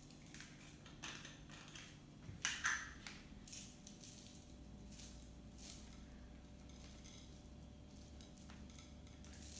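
Light clinks, taps and rustles of a rainbow confetti sprinkles container and a plate being handled while a pancake is topped, scattered through the first half or so, then only a faint steady hum.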